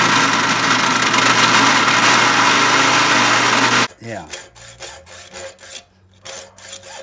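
A drill press boring into a steel rook blank with a larger bit, a loud steady whir over a motor hum, cuts off abruptly about four seconds in. After that, a hacksaw cuts slots in the steel with rhythmic back-and-forth strokes.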